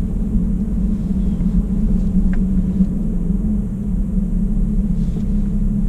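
Vehicle engine running with a steady low hum and rumble, heard from inside the cab as it drives.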